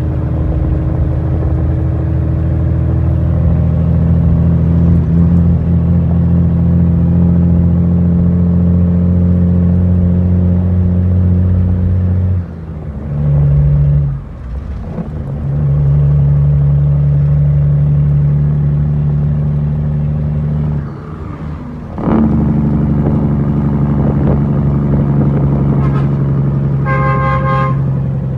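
International 9200's Cummins M11 inline-six diesel pulling the truck along, heard from inside the cab as a steady low engine drone. The engine note drops away and comes back twice, about halfway through and again about three-quarters through, as gears are changed. A vehicle horn toots briefly near the end.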